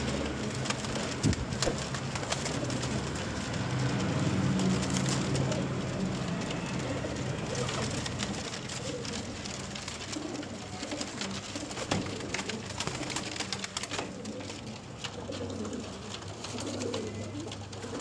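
A flock of Pakistani high-flying (parwazi) pigeons cooing in their loft, low repeated coos rising and falling, with a few sharp clicks among them.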